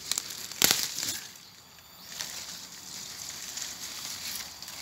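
Dry leaf litter and undergrowth crackling and rustling as a small tuberous plant is pulled up by hand from the soil. The loudest crackle comes about half a second in, then it goes quieter.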